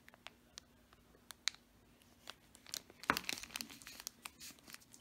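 Clear plastic packaging bags crinkling as the bagged jar and bottles are handled, in scattered light crackles with a louder burst about three seconds in.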